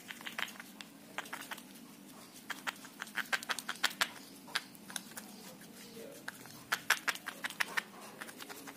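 Plastic spoon stirring a thick paste in a glass bowl: irregular clicks and taps of the spoon against the glass, over a low steady hum.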